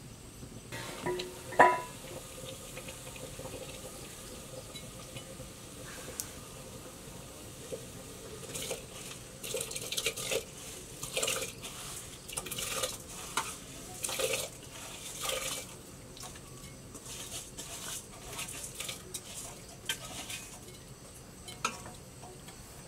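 A single loud metal clank with a short ring about a second and a half in, then repeated short scraping and splashing as soaked rice is scraped by hand out of a steel bowl into a pot of water on a wood fire.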